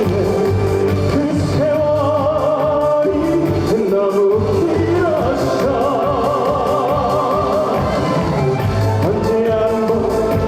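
A trot song with band accompaniment and a steady beat; the melody is held in long notes with a wide, wavering vibrato.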